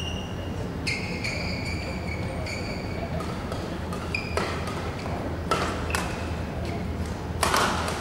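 Court shoes squeaking on a badminton court mat: several short high pitched squeals in the first half, then a few sharp knocks, the loudest near the end.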